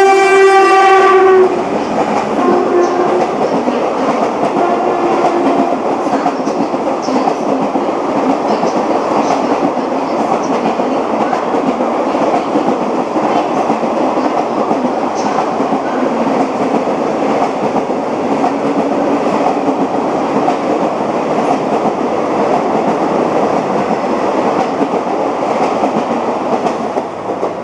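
A WCAM-3 electric locomotive's horn sounds as it approaches and cuts off about a second and a half in. Then comes the steady rumble and wheel clatter of its passenger coaches passing at speed, easing off slightly near the end.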